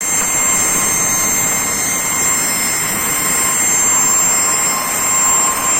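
Jet aircraft engine running steadily: a continuous rushing roar with a high, steady turbine whine on top.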